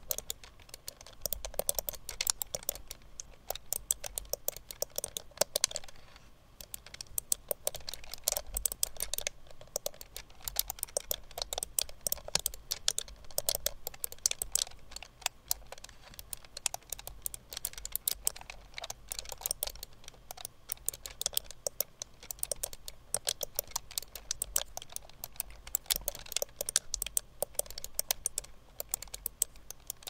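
Fast typing on a split ergonomic keyboard whose keys are mouse switches under 3D-printed plastic keycaps: a rapid, irregular run of small clicks with a few short pauses.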